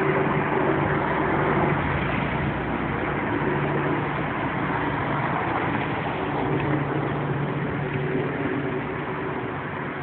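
An engine running steadily, its low hum fading and returning, over a constant rush of noise.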